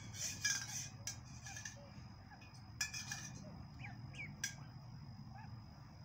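Ducklings peeping softly: a few short, bending peeps through the middle. Several sharp clicks stand out, with a brief rustle at the start.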